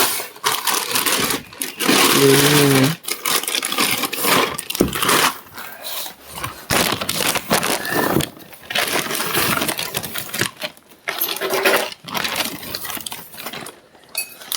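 Rustling and clattering of belongings being handled and rummaged through, in irregular bursts with short pauses.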